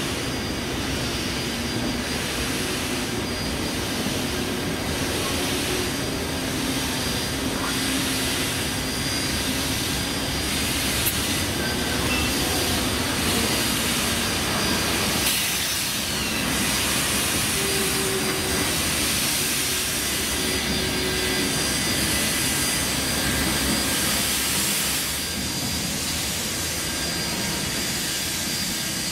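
Steam locomotive and its train moving slowly past, with a steady hiss of escaping steam and a pulse about once a second.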